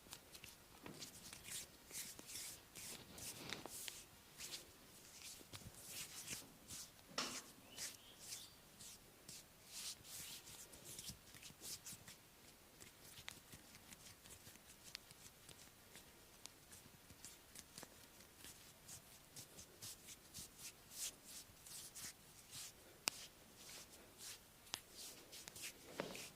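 Hands rubbing and pressing on bare skin during a massage: faint, quick brushing swishes, several a second at an irregular pace.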